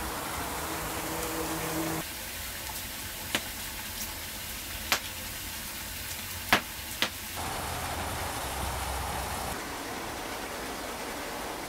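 Small open wood fire crackling, with four sharp pops in the middle stretch. A steady hiss of background noise runs underneath and fills the rest.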